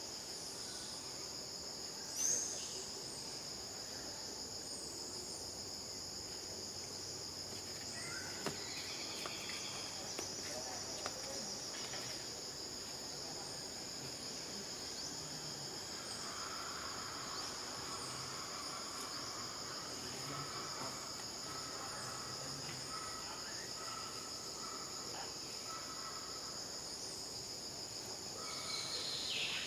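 Steady high-pitched chorus of insects buzzing, with a brief sharp chirp about two seconds in and a faint, repeated broken tone in the second half.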